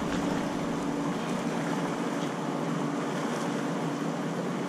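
Steady rush of wind and water noise on the river surface, with a faint steady hum underneath.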